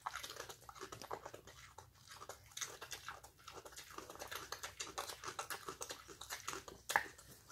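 Pet pig chewing a carrot: quick, irregular crunching, with one sharper crunch near the end.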